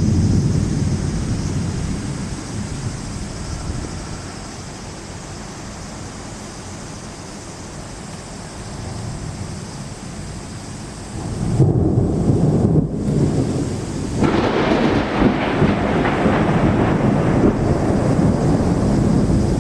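Thunderstorm with a heavy downpour: a low thunder rumble at the start fades over a few seconds over steady rain. Another loud rumble comes about eleven seconds in, and from about fourteen seconds the rain's hiss swells much louder and heavier.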